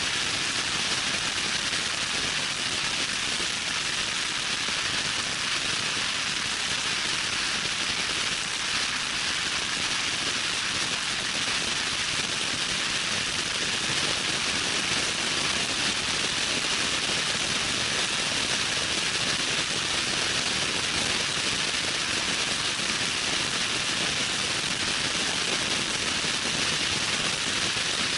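Loud, steady wind noise rushing over the microphone of a vehicle driving at high speed on a dirt trail, an even hiss that covers the engine and tyres.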